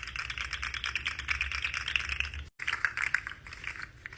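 Rapid, dense clicking and tapping of fingers on small fidget toys for ASMR, like fast typing. It stops sharply about two and a half seconds in and starts again at once.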